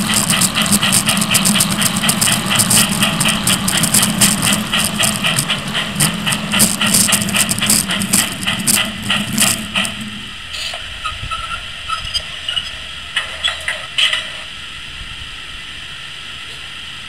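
G-scale LGB 0-4-0 Porter model locomotive running on garden railway track: a steady hum with rapid clicking. About ten seconds in the hum stops and it drops to a faint hiss with a few light clicks.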